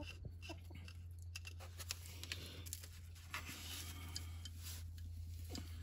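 Faint, irregular light clicks of an oil drain plug with its copper washer being handled and threaded back into a tractor's oil pan, over a steady low hum.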